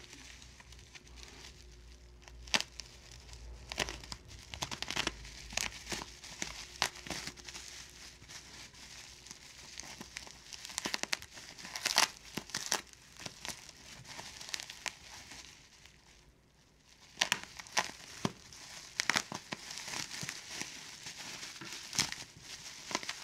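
Plastic bubble wrap crinkling and crackling as it is slit with a small knife and pulled off a parcel, in irregular spells of sharp crackles with a short lull a little past the middle.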